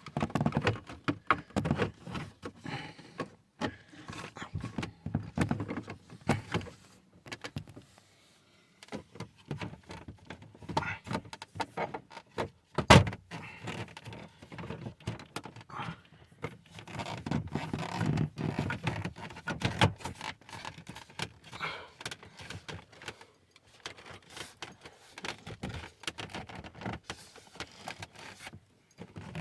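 Hard plastic dashboard trim being worked into place by hand: scattered clicks, rattles and rustling, with one sharp knock about halfway through.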